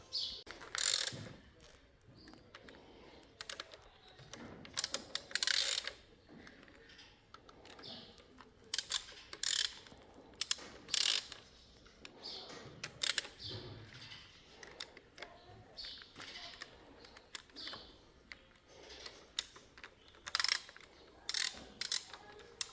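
Hand tools at work on an engine: ratchet-like clicking and metal clinks in short, irregular bursts.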